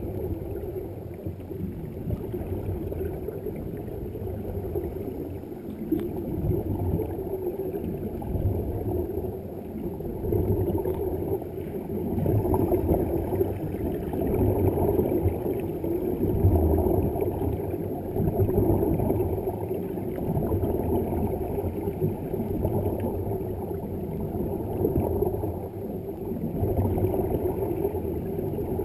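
Muffled underwater rush and gurgle of air bubbles streaming up from divers' air-supplied helmets, an uneven churning noise that swells and ebbs every few seconds.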